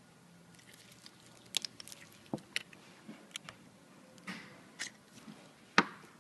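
Irregular sharp clicks and light knocks of metal and plastic spray-gun parts being handled and worked with a screwdriver, as the side block seals are backed off to free the main fluid body during disassembly. The loudest knock comes near the end.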